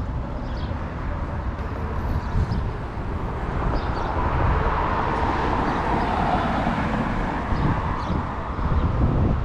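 City street traffic: a vehicle passes, swelling and fading about halfway through, over the steady low rumble of downtown traffic.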